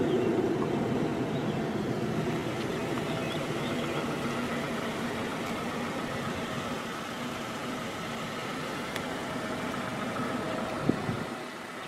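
A motor vehicle engine running steadily, with a single short knock near the end.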